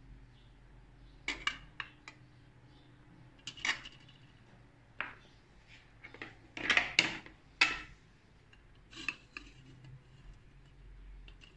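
Square glass dishes clinking and knocking against an aluminium couscoussier steamer basket as they are set in place: a few scattered knocks, the loudest cluster about seven seconds in.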